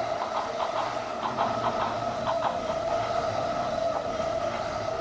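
Battery-powered Plarail toy trains running on plastic track: a steady whine from the motor and gearbox, with irregular light clicks as the wheels pass over the track joints.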